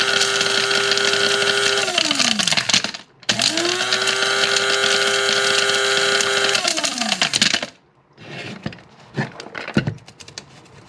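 Electric blade coffee grinder grinding pieces of a hard gumball in two bursts: the motor runs with a steady whine, spins down with falling pitch, starts again about three seconds in, and spins down again. A few light knocks follow near the end.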